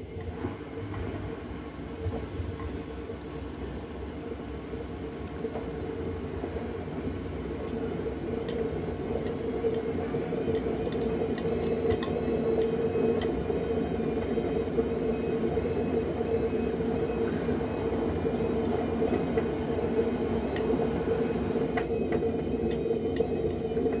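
Front-loading washing machine running, its drum turning with a steady mechanical hum that grows gradually louder. A few light clicks around the middle and again near the end, from a cat's paw tapping the door glass.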